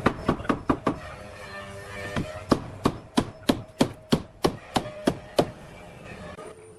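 Hammer blows striking wood: a quick run of strokes, a short pause, then about a dozen steady strikes at roughly three a second that stop shortly before the end.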